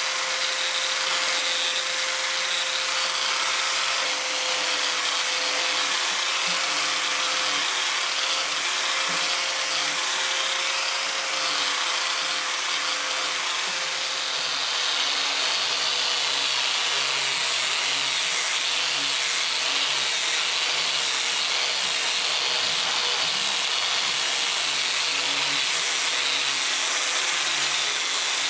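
An electric power tool running continuously on wood, with a steady hum under a wide hiss that barely changes throughout.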